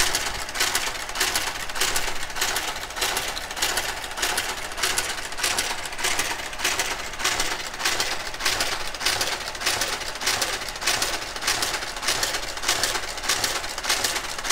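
Brother KG-93 (Compuknit III) garter carriage running on its own along a KH-965 knitting machine's needle bed during an e-wrap cast-on, making a steady, rhythmic mechanical clicking as it works slowly across the needles.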